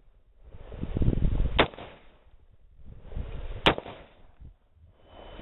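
Two rifle shots from a DPMS Panther Arms Oracle AR-15 in 5.56/.223, about two seconds apart, each a sharp crack with a short ringing tail.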